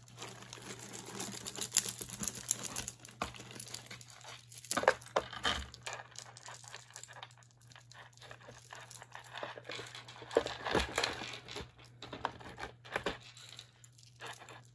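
Handling a jumble of costume jewelry: wrapping crinkling and rustling, with irregular clicks and scrapes as beaded necklaces are untangled.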